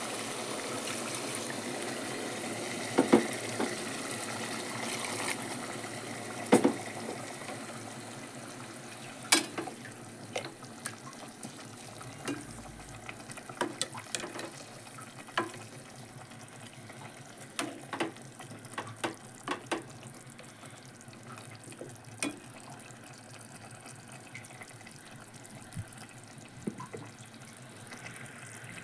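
A metal spoon stirring potatoes and tamarind gravy in an aluminium pressure cooker, with scattered sharp clinks and scrapes against the pot. A soft watery hiss fades over the first several seconds.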